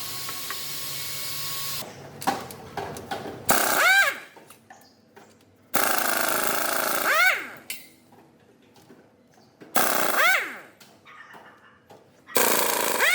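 Impact wrench run in four short bursts of about two seconds each, each burst ending in a falling whine as the motor spins down, with quieter gaps between them. A steady machine noise fills the first two seconds.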